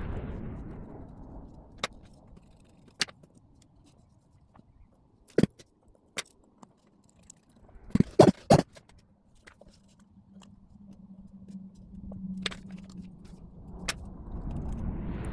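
Sharp metallic clicks and taps of small watchmaker's tools working on a pocket-watch movement as its bridge screws are tightened, a few single clicks spread out and a quick cluster of louder clicks about eight seconds in.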